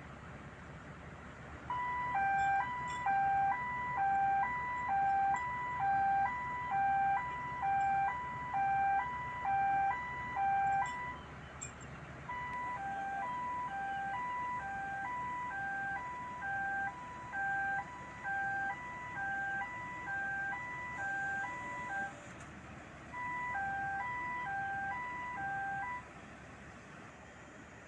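Two-tone electronic warning alarm on heavy construction equipment, alternating a higher and a lower beep at about one pair a second. It stops briefly about eleven seconds in and again near twenty-two seconds, then cuts off near the end. A diesel engine runs steadily underneath.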